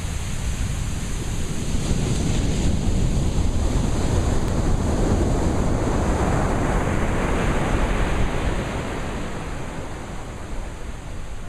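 Sea surf washing on a shore, a steady rush of water that swells to a peak around the middle and eases off near the end.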